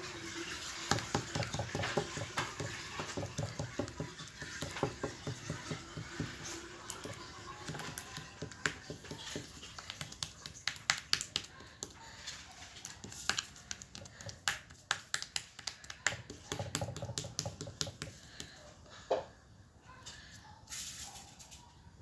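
Sticky homemade glue slime being kneaded and pulled by hand, a run of small wet clicks and squelches.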